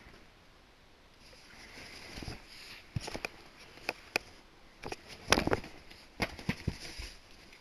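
Objects being handled: scattered sharp clicks, taps and knocks, with a louder rattling cluster about five seconds in.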